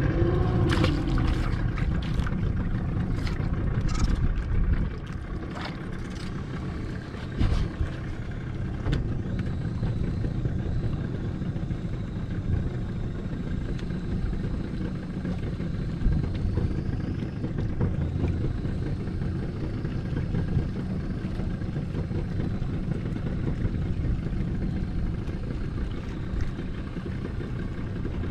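Steady low rumble of a small fishing boat's engine running, with several sharp clicks and knocks over the first nine seconds or so.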